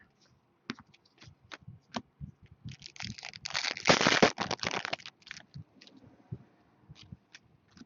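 Trading cards and their packaging being handled: scattered light clicks and taps, with a longer stretch of rustling and scraping about three to five seconds in.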